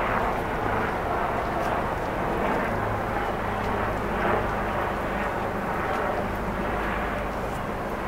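Steady city background noise: a continuous rumble and hiss of distant traffic, with a few faint ticks.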